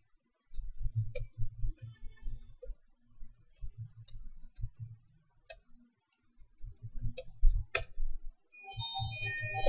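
Typing on a computer keyboard: irregular key clicks with dull thuds beneath them, while a line of text is entered. Near the end a short run of electronic musical tones begins.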